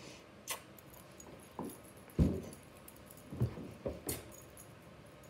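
Close handling noises: a few soft knocks and bumps, the loudest about two seconds in, with a couple of light clicks.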